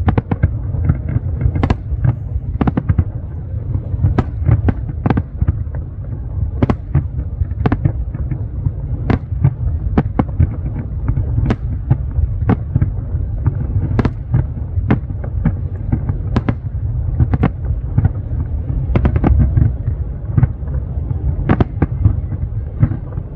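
Fireworks display: aerial shells bursting in an irregular barrage of sharp bangs, about two a second, over a continuous low rumble.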